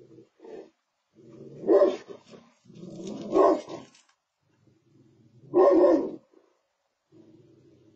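Golden retriever barking three times in deep, loud barks, with a low rumbling growl before and between the barks and again near the end.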